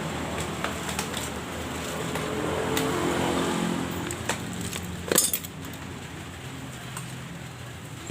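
A motor vehicle engine running, fading away over the first five seconds, then a sharp metallic clink about five seconds in followed by a few lighter clicks.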